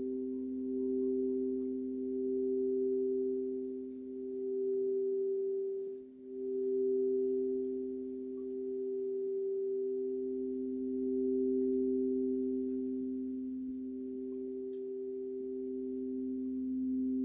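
Quartz crystal singing bowls holding two pure, sustained tones together, one lower and one higher. The sound swells and fades slowly and dips briefly about six seconds in.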